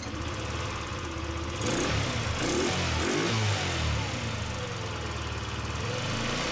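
Scooter engine running, revved up and down several times by throttle blips between about two and three and a half seconds in, then back to a steady idle. The mechanic suspects a faulty carburettor accelerator pump.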